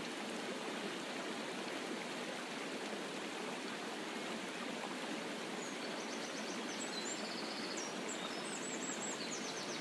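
Steady rush of a waterfall, an even hiss of falling water with no breaks. Faint high chirps join in over the last few seconds.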